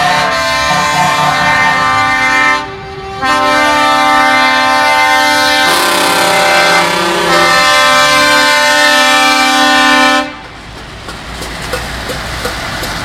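Truck air horns sounding long, held multi-tone chords, with a brief break about two and a half seconds in and a change of chord near six seconds. The horns stop abruptly about ten seconds in, leaving the rumble of passing truck engines.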